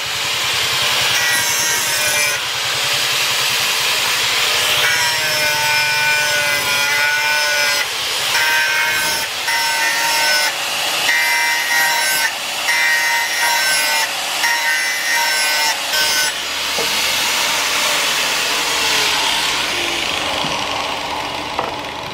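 Handheld electric angle grinder with an abrasive disc grinding a steel machete blade: a harsh hiss of disc on steel over the motor's whine. The whine breaks off and comes back every second or so as the disc is pressed on and lifted in repeated passes. Late on the grinding stops and the motor's whine falls as the disc spins down.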